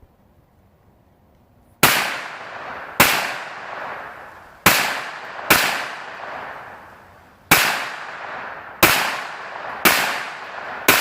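Hi-Point 9mm carbine firing a string of single shots, about eight, unevenly spaced and starting about two seconds in, each with a ringing echo tail. The carbine is cycling the 9mm full metal jacket rounds without a malfunction.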